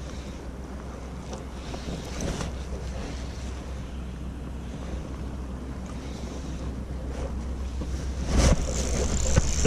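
Wind rumbling on the microphone, with faint ticks from a Daiwa spinning reel being wound. About eight seconds in there is a sudden loud knock, then a thin, steady high whine as a fish hits the lure and bends the rod.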